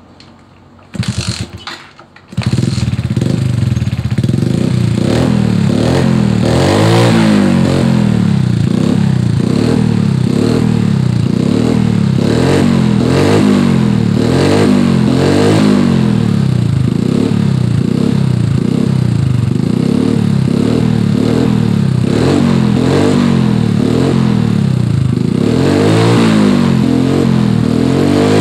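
Suzuki Smash 110's single-cylinder four-stroke engine being kick-started: a short uneven burst about a second in, then the engine catches at about two and a half seconds and runs steadily. It idles normally, showing the newly rewired battery-less ignition circuit works.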